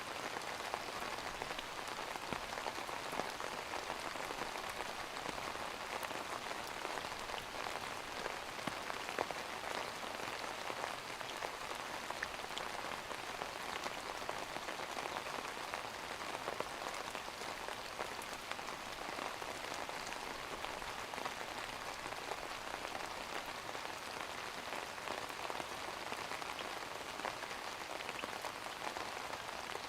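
Steady rain falling, an even hiss flecked with small ticks of drops.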